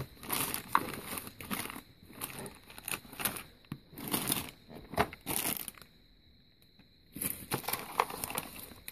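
Plastic parts bags crinkling and a plastic storage drawer being rummaged through, in irregular bursts of rustling, with a pause of about a second about two-thirds of the way through.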